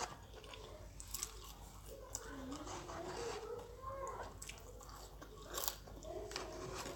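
Mouth eating sounds: McDonald's French fries being chewed, with a few sharp wet clicks and smacks at irregular moments.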